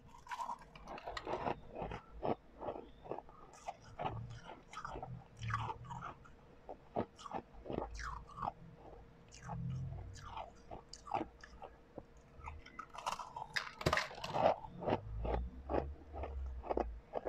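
Close-up crunching and chewing of refrozen blended ice: an irregular run of crisp crunches, with a denser burst of bites about three-quarters of the way through.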